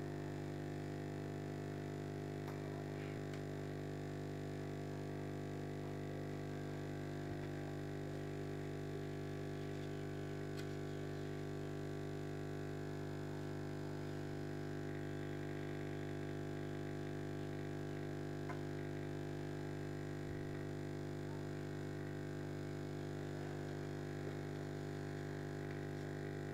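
Steady low hum of the aquarium's air pump driving the bubbler, with a few faint ticks.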